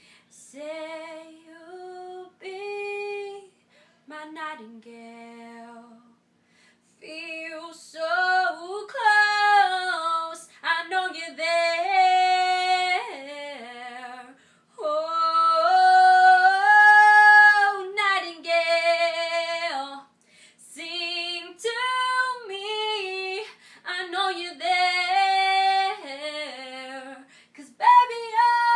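A young woman singing solo a cappella, with no accompaniment. She starts with soft phrases, grows louder about seven seconds in, and holds long notes with vibrato between quick vocal runs.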